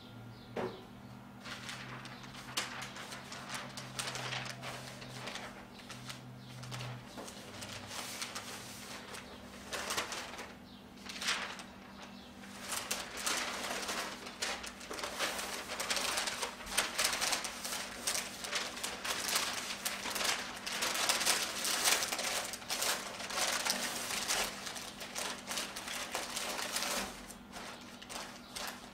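Butcher paper rustling and crinkling as a smoked brisket is wrapped in it by hand, growing busier and louder after about twelve seconds. A steady low hum runs underneath.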